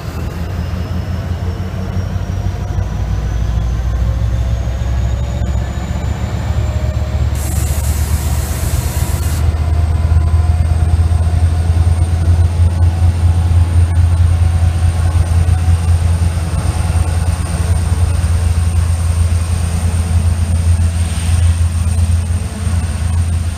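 Israel Railways diesel locomotive passing close at low speed with its double-deck coaches, its engine giving a steady deep rumble that grows louder as it draws level. A thin high whine rises over the first several seconds and then holds steady, and a short hiss lasting about two seconds comes about eight seconds in.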